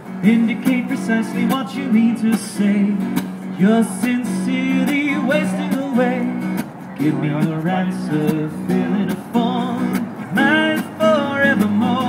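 A man singing while strumming an acoustic guitar: a solo folk-style street performance of voice and guitar.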